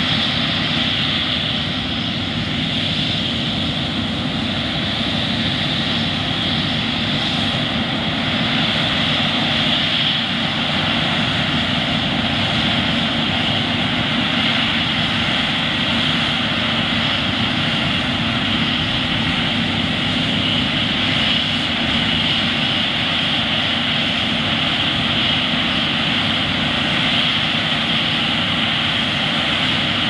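John Deere S690 combine and John Deere 9410R tractor running together in a steady diesel drone as the combine threshes wheat and unloads on the go into a grain cart.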